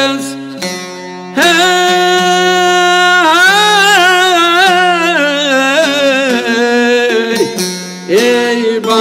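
A man sings an Albanian folk song in long, ornamented held notes over a long-necked Albanian lute that he plucks and strums, with a steady low drone beneath. The first second and a half is quieter, and then the voice comes in strongly.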